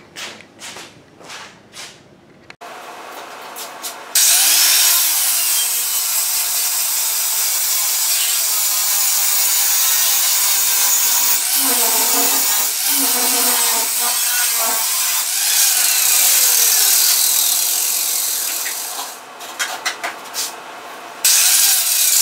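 Angle grinder cutting into the folded seam along the bottom edge of a sheet-steel truck door's outer skin, a harsh, high-pitched grind of disc on metal. It spins up a few seconds in and grinds steadily under load, lets off in short bursts near the end, then bites in loud again.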